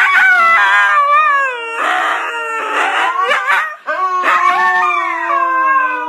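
Husky howling: long, wavering howls that slide down in pitch, with rougher, noisier yowls mixed in. The howling breaks off briefly about four seconds in and then starts again.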